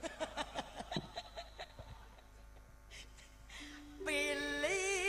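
Short bursts of laughter for about the first two seconds. About three and a half seconds in, a held note sounds, followed by a melody with a wavering, vibrato-like pitch as the next campursari song starts.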